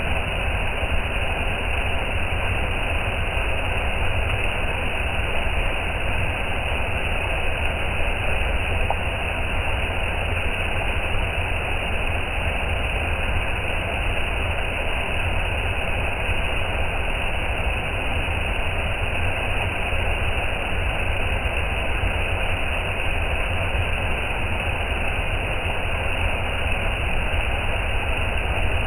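Waterfall rushing: a steady, unbroken noise of falling water with a deep rumble underneath.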